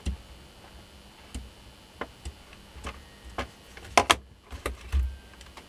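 Light irregular clicks and taps of a multimeter probe and a small angle-grinder armature being handled and set down on a workbench while the commutator bars are checked for continuity, with a louder double click about four seconds in and a dull knock about a second later.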